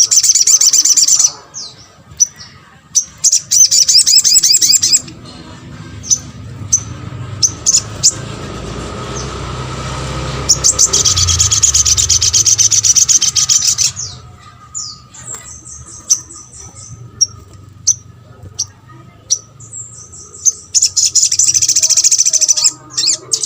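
Little spiderhunter (sogon) calling in fast rattling runs of high chirps, four bursts of a second or more, with single sharp chips between them. A low rumble swells in the middle and fades out at about 14 seconds.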